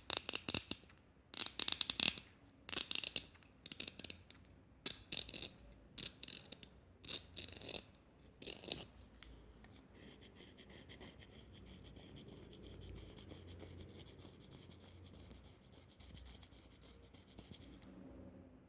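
A lighter's wheel flicked over and over, a short scratchy rasp each time, about a dozen strikes over some nine seconds. Then a steady gas hiss runs for about eight seconds and stops shortly before the end.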